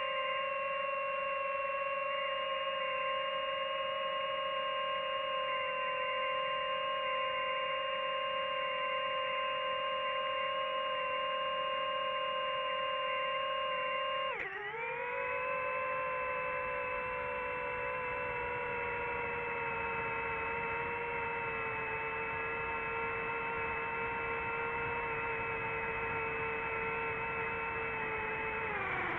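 Quadcopter drone's motors and propellers whining at a steady pitch. About halfway the pitch dips sharply and settles a little lower, and it dips again at the very end, as the drone throttles down to descend.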